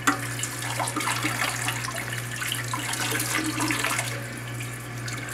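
Toilet tank refilling: water runs steadily from the fill valve into the tank.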